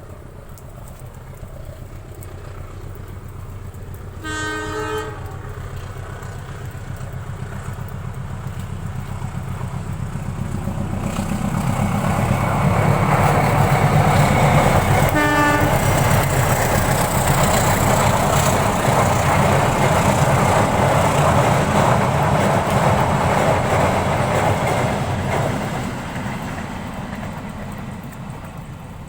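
A train passing by: its horn sounds once about four seconds in and again briefly about fifteen seconds in, while the running noise of the train builds, stays loud through the middle and fades near the end.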